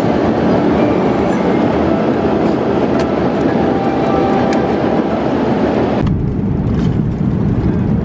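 Airliner cabin noise in cruise: a steady, loud rumble and rush of engine and air noise inside the cabin. About six seconds in it turns duller, losing its hiss.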